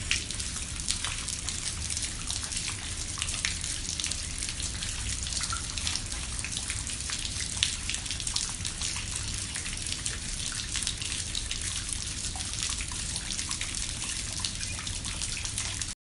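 Rain falling on a pond: a steady patter of many small drops hitting the water surface.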